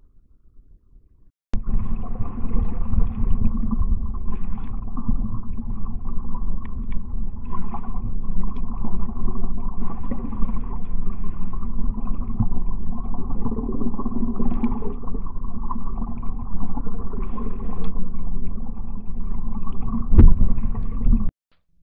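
A trail camera's microphone picking up a loud, steady rush of fast-moving creek floodwater, which starts suddenly about a second and a half in and cuts off abruptly near the end, with a heavier thump shortly before the cut.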